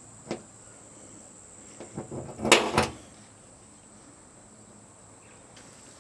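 Center punch striking the Ford Ranger's steel front quarter panel to mark drill holes: a single sharp click, then a quick cluster of metallic knocks about two seconds in, the loudest two near the middle.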